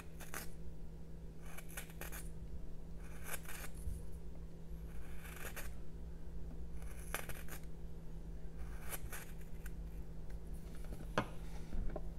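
Small hand carving tool slicing shavings from jelutong wood in short, crisp strokes, about one every one and a half to two seconds. A sharper knock comes near the end.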